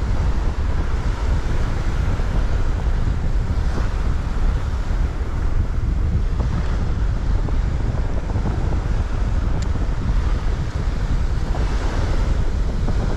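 Wind buffeting the microphone with a steady low rumble, over the wash of small waves breaking on the shore.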